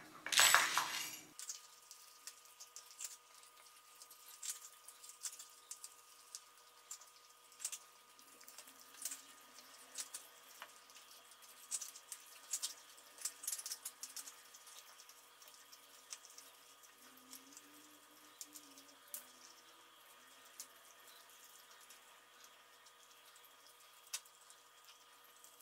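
Dry cat kibble poured from a plastic cup into a dish, rattling loudly for about a second. Then a cat eating the kibble: irregular faint crunches and clicks of bites and pieces knocking in the dish, over a faint steady hum.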